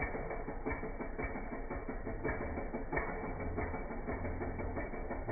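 Stihl MS 250 two-stroke chainsaw running at low speed, a steady engine note with irregular clicks over it.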